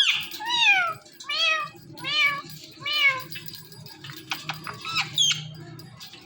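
Ringneck parrot mimicking a cat's meow, about five meows in quick succession, followed by a few soft clicks and a short chirp.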